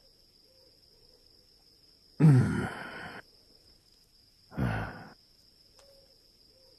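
A man's long voiced sigh that trails off, then a shorter breathy exhale about two seconds later.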